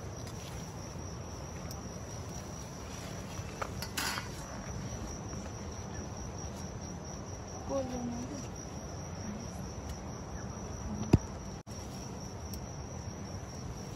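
Insects trilling steadily at a high pitch, with a soft rustle about four seconds in and a single sharp knock near the end.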